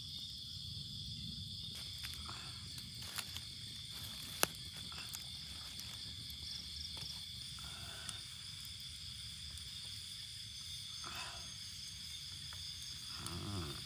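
Night insects chirring in a steady, high-pitched drone of two close tones, with a low background hum and a few short sharp clicks, the loudest about four seconds in.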